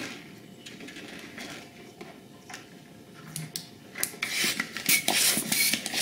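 Faint rubbing and handling of latex balloons. About four seconds in, a loud rush of air comes in several surges as a long yellow 160 modelling balloon is inflated.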